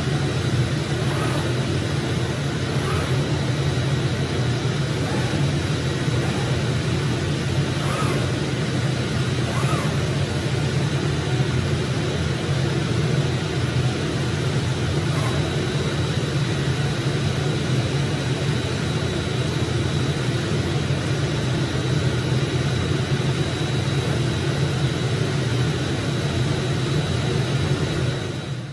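Digital flatbed cutting table running while its head cuts printed vinyl: a steady machine drone with a strong low hum and a thin high whine, and a few faint short chirps in the first ten seconds.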